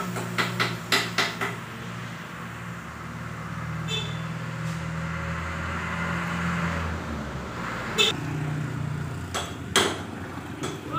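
Light metallic taps and clinks of engine parts being handled on the workbench, a quick run in the first second or so and a few single clinks later. Under them a low hum swells and fades in the middle.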